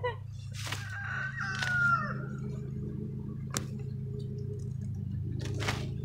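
A rooster crows once early on, one drawn-out call, while corn stalks and husks rustle and snap as ears are picked by hand, with one sharp snap about halfway through. A steady low hum runs underneath.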